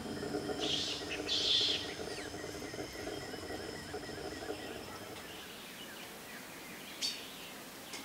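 Tropical dusk ambience over a forest-fringed lake: steady high-pitched insect trilling throughout, with bird calls, two close together in the first two seconds and one short sharp call about seven seconds in.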